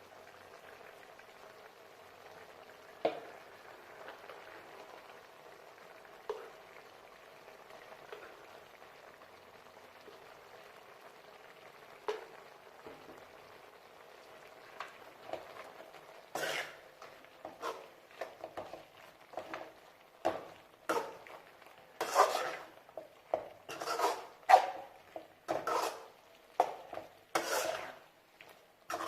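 Chicken gravy cooking in a pan with a faint steady sizzle and an occasional single clink. From about halfway a utensil stirs and scrapes against the pan in quick, repeated strokes that are louder than the sizzle.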